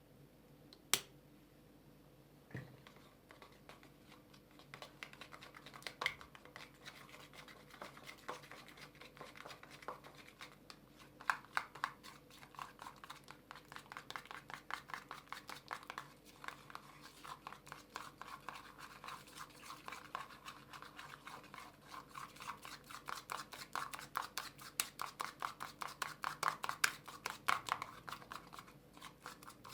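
A utensil stirring a sticky egg-and-flour slime mixture in a bowl, in quick repeated scraping strokes that grow louder and faster toward the end. A single sharp click comes about a second in.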